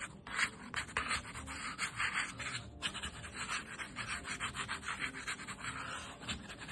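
Sourdough dough being shaped into a ball on a floured counter: quick, repeated rubbing and scraping strokes as the dough is pushed round in a circle.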